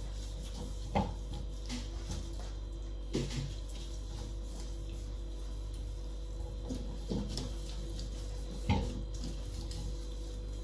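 Steady low hum with four light knocks or taps spread through it, the loudest near the end.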